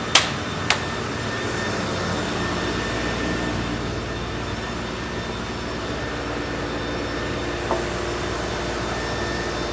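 Gang rip saw and its dust-collection blower running steadily, a constant machine hum with a few steady tones. Two sharp knocks sound in the first second and a lighter one near the end.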